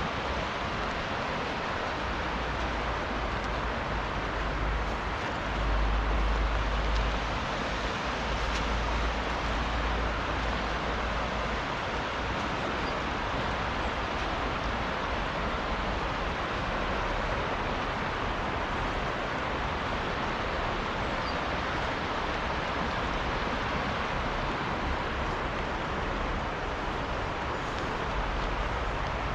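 Steady rushing of a fast river, an even hiss that does not let up, with a low rumble swelling for several seconds near the start.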